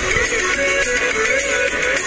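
Background music with a plucked, guitar-like melody stepping up and down over a steady backing.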